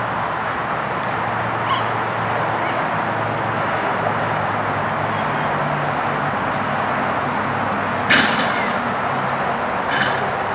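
A dog barks twice, about two seconds apart, near the end, over a steady background hiss with a low hum.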